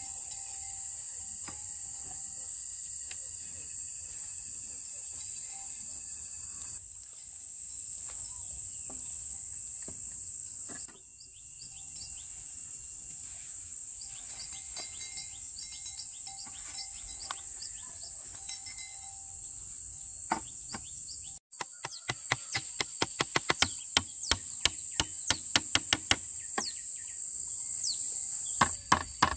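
Steady high insect buzzing over forest background hiss. From about two-thirds of the way in, a fast, regular run of sharp knocks, a few a second, from hand strikes of a tool on wood.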